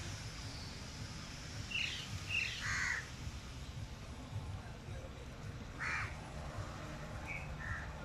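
House crows cawing: a quick run of three caws about two seconds in, a single louder caw around six seconds, and two fainter calls near the end, over a steady low rumble.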